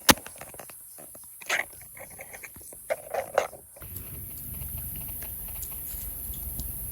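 A sharp click at the start, then a few short vervet monkey calls, one about a second and a half in and a quick cluster around three seconds. After that come a steady low background noise and faint clicks.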